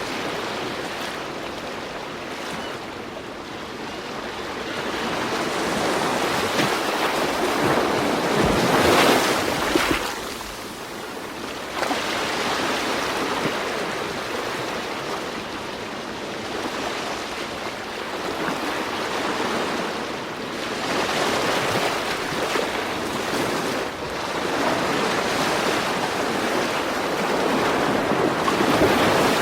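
Ocean surf: waves washing in and drawing back in slow swells, loudest about nine seconds in and again near the end.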